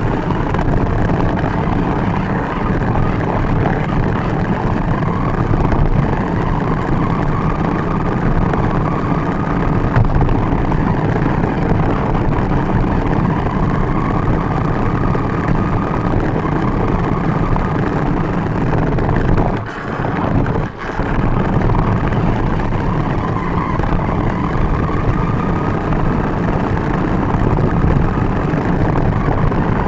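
RC car's motor whining, its pitch drifting gently up and down with speed, over a loud steady rumble of small tyres on asphalt, heard from a camera riding on the car. The sound dips briefly twice about twenty seconds in.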